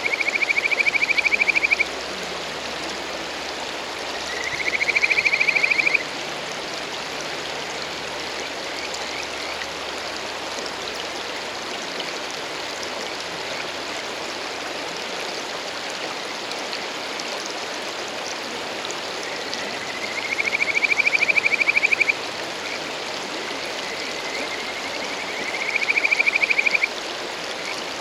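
Male kajika frogs (Buergeria buergeri) giving their courtship call: a fast-trilled whistle of about two seconds that rises in pitch and cuts off sharply. It comes four times, twice near the start and twice near the end, over the steady rush of a mountain stream.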